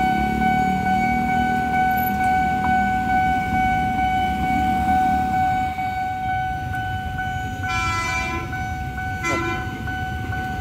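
Level-crossing warning alarm ringing steadily over the rumble of idling motorbikes. About eight seconds in, an approaching JR 205-series KRL electric commuter train sounds its horn, a one-second blast and then a short second toot.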